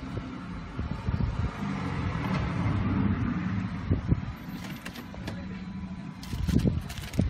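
Low steady rumble inside a car cabin, with hands handling dash cam packaging: plastic rustling and small knocks, louder about four seconds in and again near the end.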